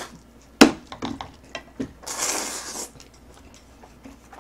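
Jjapagetti noodles slurped up in one hissing slurp about two seconds in, with a sharp click just before it and smaller wet clicks of mouth and utensils while eating.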